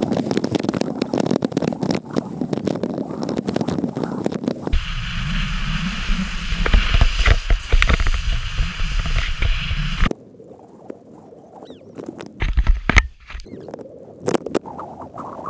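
Snowboard sliding and scraping over snow, with wind rumbling on the action-camera microphone. About ten seconds in the sound drops suddenly to a quieter stretch with a few scattered knocks.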